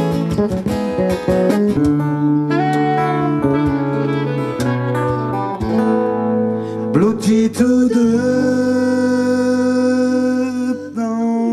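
Live band music: an electric bass plays quick plucked notes at first, then long held notes take over from about two seconds in, with a pitch slide about seven seconds in.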